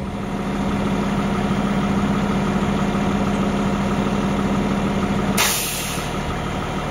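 Fire engine's diesel running steadily at idle. About five seconds in there is a short burst of hiss, and the engine note then settles lower.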